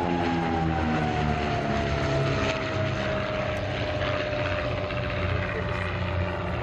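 Twin de Havilland Gipsy Six piston engines of a DH.88 Comet racer running in a fly-past. The engine note falls in pitch over the first three seconds as the aircraft passes and draws away, then holds steady.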